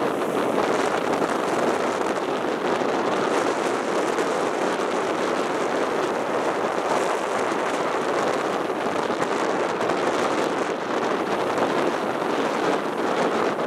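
Heavy ocean swell breaking and washing over a rocky foreshore in a continuous, steady rush of surf.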